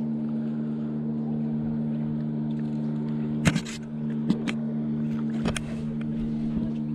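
Boat motor running with a steady hum, with a few sharp knocks about halfway through, the loudest about three and a half seconds in.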